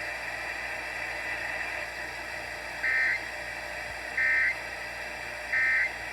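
Three short, identical bursts of Emergency Alert System end-of-message data tones, about 1.4 seconds apart, marking the end of the alert, heard over FM radio with steady radio hiss underneath.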